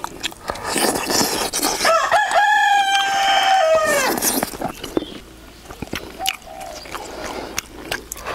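A rooster crowing once, about two seconds in: a short rising start, a long held note, then a fall at the end.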